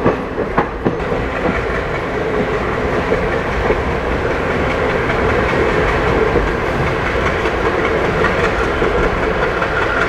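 Passenger train running along the line, heard from an open coach window: a steady rumble of the running gear with the wheels clattering over the rail joints, and a few sharp clicks in the first second.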